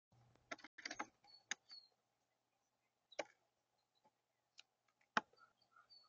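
A blue jay landing on a feeder table and picking at peanuts: a cluster of sharp taps and knocks about a second in, then scattered single knocks, the loudest about five seconds in.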